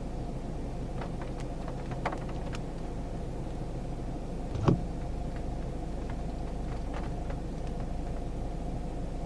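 Steady low rumble of a car, with a faint steady hum, a few small clicks, and one louder thump a little before the middle.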